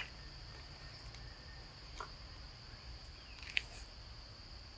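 Insects droning steadily at a high pitch in the forest, with a few short sharp clicks, the loudest about three and a half seconds in.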